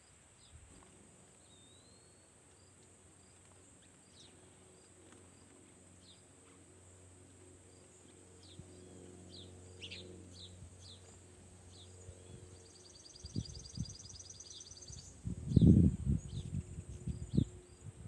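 Sparrows giving short, scattered chirps, over a steady high-pitched insect drone. A fast trill runs for a couple of seconds about two-thirds through, and a few loud low rumbles near the end are the loudest sounds.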